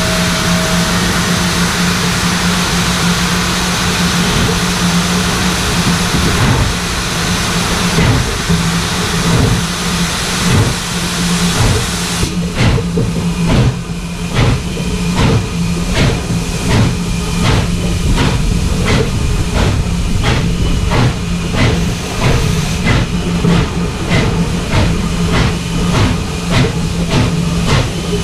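Norfolk & Western 611, a 4-8-4 steam locomotive, running under way: its exhaust beats at the stack (stack talk) over a steady low hum. A loud hiss fills the first half with only scattered beats, then drops away about twelve seconds in, and the beats come through clearly and evenly at about two a second.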